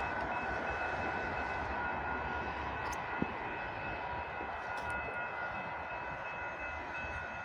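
Steady distant road traffic noise with a faint, steady high-pitched whine, and a single light tap about three seconds in.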